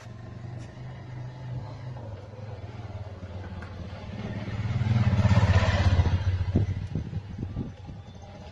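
Motorcycle engine running, growing louder to a peak about five to six seconds in and then easing off, with a few sharp pops just after the peak.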